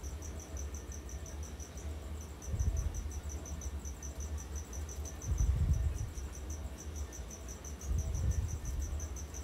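Crickets chirping steadily in a high, even pulse of about five or six chirps a second. Three short low rumbles come and go underneath.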